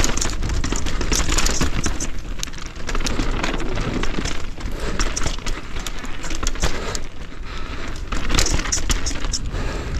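Mountain bike rolling fast down rock slabs and dirt trail, picked up by a camera on the rider: steady tyre noise on rock and grit with constant small clicks and knocks from the bike rattling over the rough surface, over a low rush.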